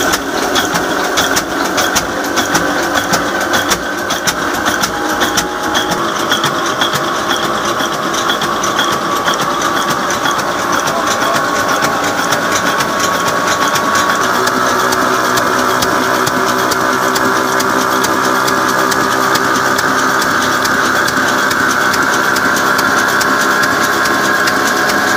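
Old stationary diesel engine with a large flywheel running steadily just after a cold start, with a rapid mechanical clatter. About halfway through, the sound turns smoother and steadier.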